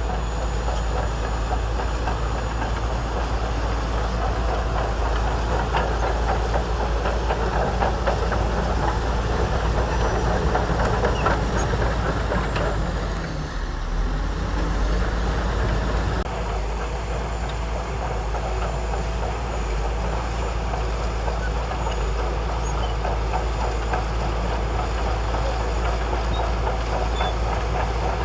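Diesel engine of a Shantui DH17C2 crawler bulldozer running steadily under load, with the clatter of its steel tracks, as it pushes and spreads sand. The sound dips briefly about halfway through, then carries on a little quieter.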